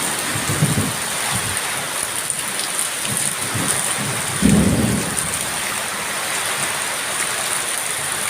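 Steady rain in a thunderstorm, with a short low rumble of thunder about four and a half seconds in.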